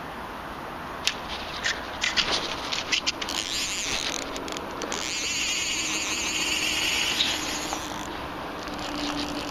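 Scraping and sharp knocks of a hand and clothing brushing against a body-worn camera, followed by a few seconds of fast, high buzzing rattle.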